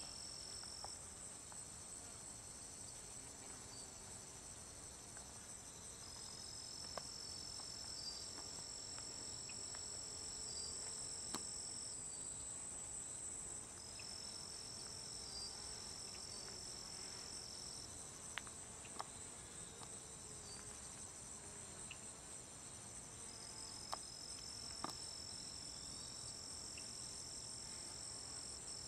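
Steady high-pitched chorus of singing insects: one continuous trill, joined by a slightly lower trill that comes in and drops out several times in stretches of a few seconds. A few faint clicks are scattered through it.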